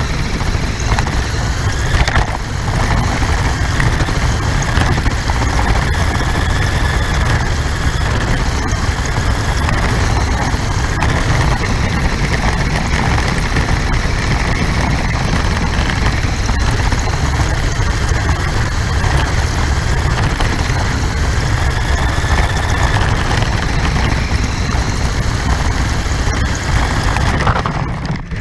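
RC car's motor and drivetrain heard from a camera mounted on the car: a steady low rumble with a faint whine that rises and falls as the car speeds up and slows down. The sound dips briefly near the end.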